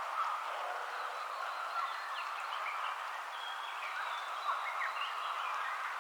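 Steady rain falling, with several birds singing over it in short, quick chirps.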